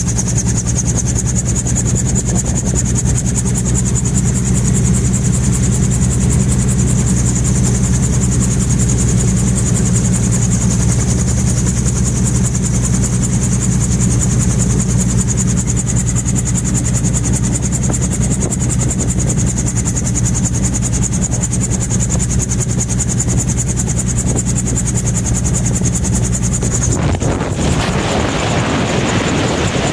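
Gyrocopter engine idling steadily in flight, heard from inside the open cockpit with wind noise. Near the end the sound changes abruptly to a rougher rush of wind as the engine tones drop away.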